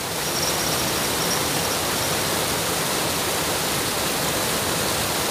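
Steady rushing of flowing water, an even hiss that holds level throughout.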